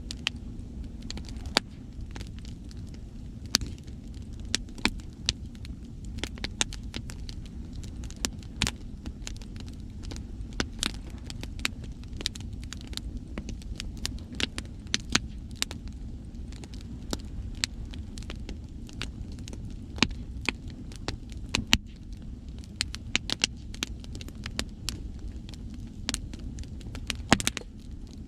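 Wood campfire crackling and popping in irregular sharp snaps, some much louder than others, over a steady low rumble of sea surf.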